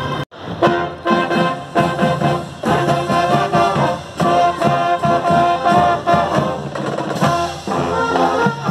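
Marching band playing: brass with sousaphones, held notes over a steady drumbeat.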